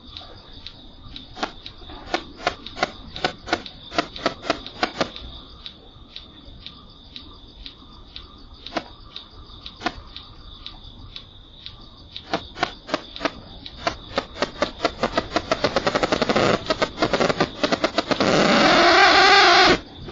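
Irregular sharp clicks over a steady high whine, speeding up into a dense buzz that cuts off suddenly near the end. The recorder picks this up though it cannot be heard by ear, and the owner likens it to a pig's squeal.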